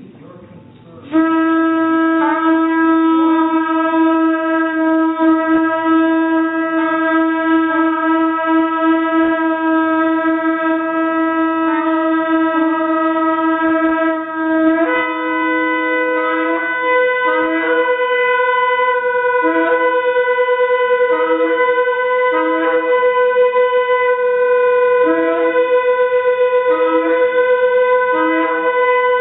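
Recorded shofar (ram's horn) blasts: a long held note for about fourteen seconds, then a higher held note with short, lower blasts repeating beneath it.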